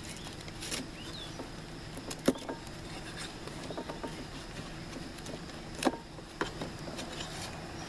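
Metal hive tool prying and scraping at the wooden cover board of a package of honey bees, with a few sharp clicks as it bites into the wood, over a steady low hum.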